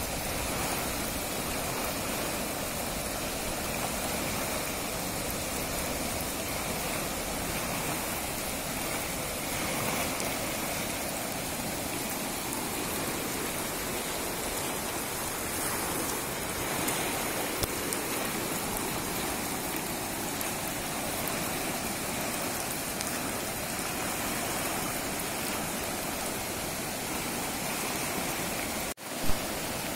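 Muddy floodwater rushing and churning over rocks in a swollen stream, a steady rushing noise. Near the end it cuts out for an instant, followed by a sharp click.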